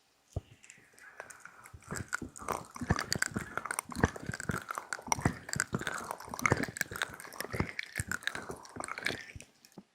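ASMR ear massage: fingers rubbing and kneading right against the microphone, a close crackly rustling with many small pops, stopping just before the end.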